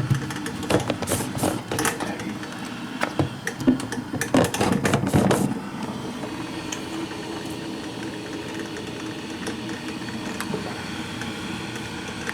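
Clicks and knocks of handling for about the first five seconds, then a steady hum and hiss of a Black & Decker drip coffee maker heating and brewing its water.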